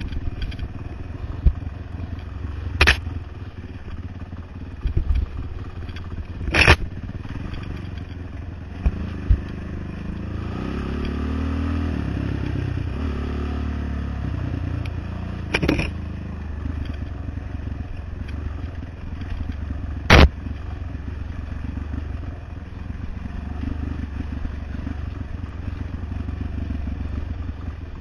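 ATV engine running as the quad rides a rough dirt trail, its note rising and falling partway through. A few sharp knocks and clatters come from the machine jolting over the ground.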